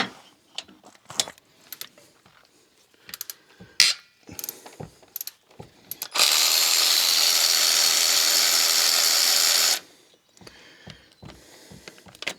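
Power tool driving a socket, running steadily for about three and a half seconds from about six seconds in and then stopping sharply, as a bolt is run out. Before it come light clicks and clanks of a socket and metal parts.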